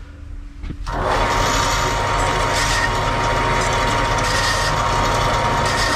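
A small horizontal metal-cutting bandsaw switches on about a second in and then runs steadily with a constant whine, cutting a clamped metal bar to length.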